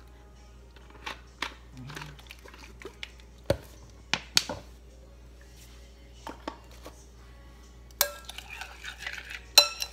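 A few sharp knocks as a plastic lemon-juice squeeze bottle is handled and stood down on a granite countertop, the loudest a dull thump about three and a half seconds in. From about eight seconds in, hands stir chicken and marinade in a glass mixing bowl, with quick clattering and clinks against the glass.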